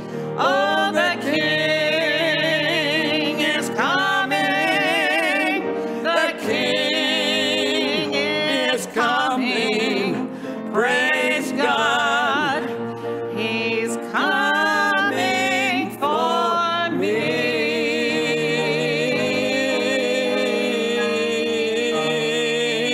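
Gospel hymn sung with vibrato over instrumental accompaniment. The song closes on one long held note in the last several seconds.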